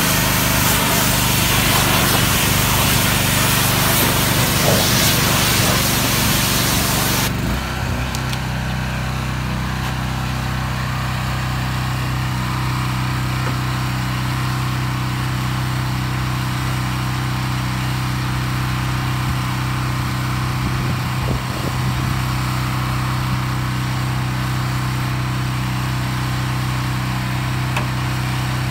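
Pressure washer spraying water hard against a semi-truck cab, a loud hiss that cuts off suddenly about seven seconds in. Under it, and alone afterwards, an engine runs steadily.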